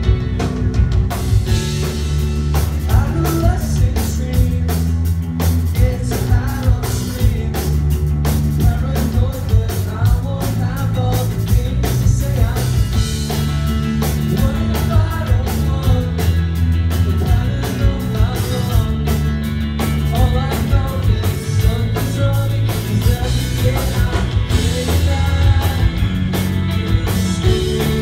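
Rock band playing live: electric guitars, bass guitar and drum kit, with a man singing.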